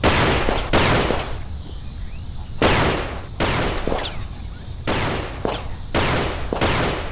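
Handgun gunfire: about ten shots at irregular spacing in a running exchange, each with a short echoing tail.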